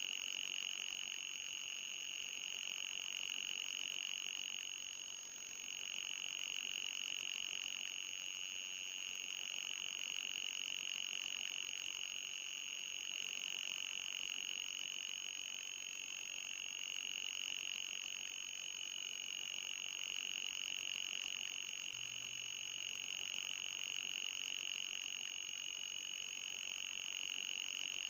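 Electronic anti-mosquito repellent tone: a steady, high-pitched, pulsing whine that wavers slightly in pitch, with a fainter, even higher steady tone above it. It briefly drops about five seconds in.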